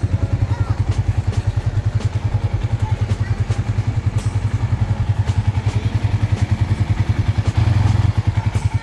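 Suzuki Raider R150 Fi's DOHC single-cylinder four-stroke engine idling through its stock exhaust, a steady rapid low pulsing that grows louder for a moment near the end. The engine is freshly rebuilt with a new KSR bore kit and cylinder head.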